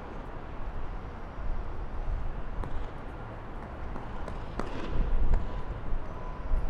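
Outdoor city street ambience: a steady low rumble with a few sharp knocks, and a faint steady whine coming in near the end.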